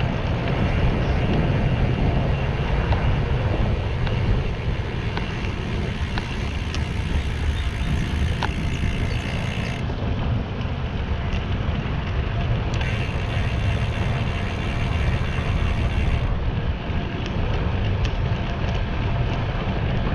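Steady wind buffeting on an action camera's microphone from a bicycle riding at about 13 to 16 mph, mixed with tyre noise on asphalt, deep and rumbling, with a few faint ticks.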